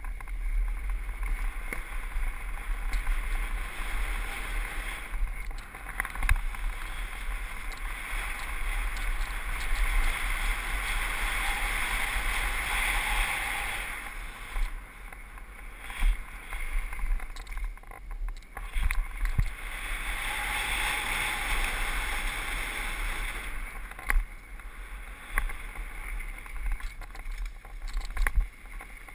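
Mountain bike riding fast down a dirt trail: a rushing of wind on the microphone and tyres on packed dirt that swells and eases several times, with a low buffeting rumble and scattered knocks and rattles from bumps.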